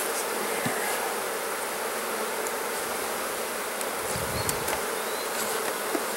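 A mass of honeybees buzzing around an opened hive: a steady, dense hum.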